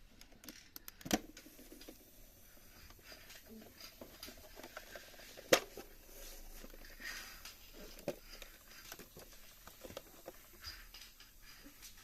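Small plastic toy parts being handled: scattered light clicks and taps, with two sharper knocks, about a second in and about five and a half seconds in.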